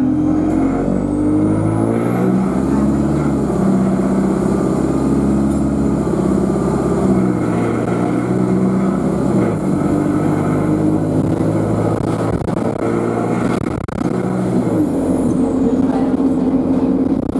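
Alexander Dennis Enviro200 Euro 5 bus engine under power, with a high, thin turbocharger whine. The whine climbs in pitch over the first couple of seconds, holds, then falls away about fifteen seconds in, while the engine note shifts up and down underneath.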